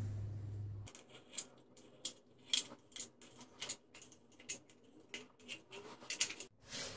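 Hand-squeezed caulking gun clicking over and over as its trigger is worked to push silicone out of the tube along a tile joint, about two sharp clicks a second at an uneven pace. A low steady hum stops about a second in.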